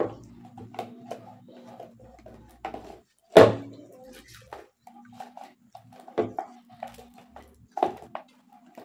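A metal spoon clinks and scrapes against a stainless-steel bowl while a toddler is spoon-fed. The loudest clink comes about three and a half seconds in, with more near the end, over a steady low hum that comes and goes.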